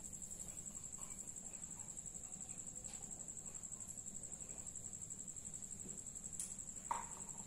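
Cricket trilling: one high, continuous note with a fast, even pulse.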